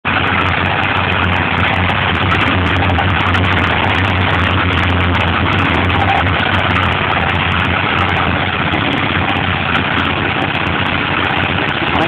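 Yellow portable drum concrete mixer running with a mix in its drum: a steady low hum under a loud, even din, with frequent small clicks throughout.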